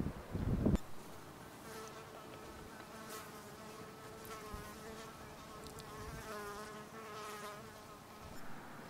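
A flying insect buzzing close by, with a steady hum whose pitch wavers slightly as it moves, from about two seconds in until near the end. A brief rush of wind on the microphone comes at the very start.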